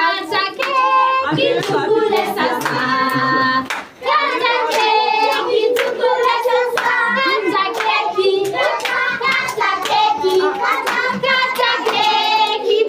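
A group of voices, children among them, singing together while clapping along in a steady beat, as at a birthday cake-cutting.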